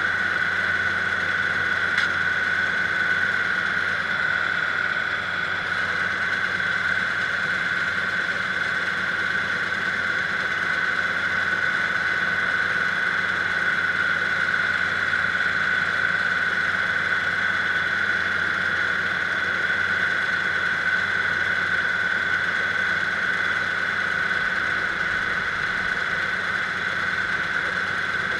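Kubota diesel engine running steadily at an even speed, with a high steady whine over it and one sharp click about two seconds in.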